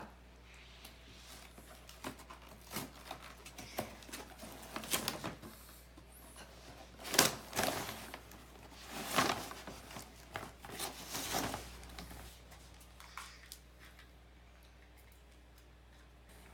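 Costume packaging being torn open and crinkled by hand: irregular rustles and rips, loudest in the middle, dying away toward the end.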